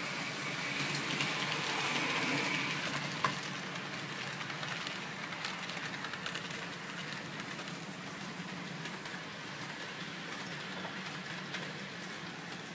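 HO-scale model freight train rolling along the layout track: a steady hiss of wheels on rails and a small motor hum, loudest over the first few seconds, then settling. A single sharp click about three seconds in.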